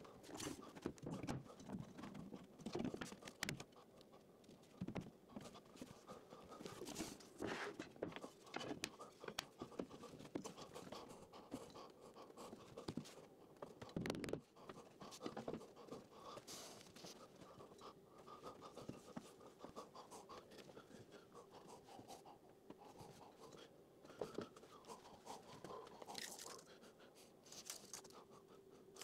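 Quiet scraping and knocking of MDF spoilboard sections and wooden slips being slid and pushed into place on a CNC router bed, with scattered short sharper knocks throughout.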